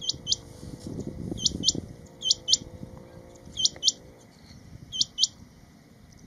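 Male rain quail (black-breasted quail) calling: five sharp double notes, each note a quick high whistle falling in pitch, repeated about once a second.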